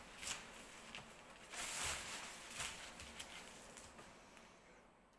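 Kite fabric rustling as it is handled and smoothed flat by hand, with a few light clicks, the loudest rustle about a second and a half to two seconds in.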